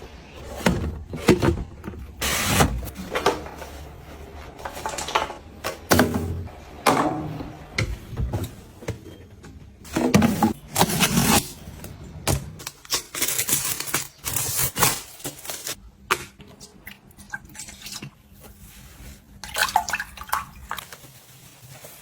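Handling sounds from cleaning and organizing: a run of short knocks, taps and rubs as items are picked up and set down, with a few longer hissing or rushing bursts.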